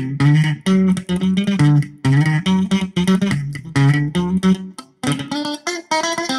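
Electric guitar played through a Zoom 506 bass distortion pedal, riffing in short, choppy distorted notes with a brief break about five seconds in.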